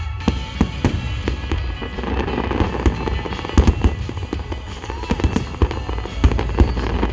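Aerial fireworks bursting in quick succession: many sharp bangs throughout, over a low rumble, with music playing over large loudspeakers.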